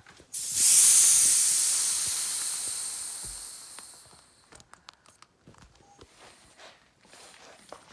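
Air hissing out of a KTM 50's small front tire through the valve stem as the valve core is pushed in, starting suddenly and fading away over about four seconds as the tire deflates. A few faint clicks follow.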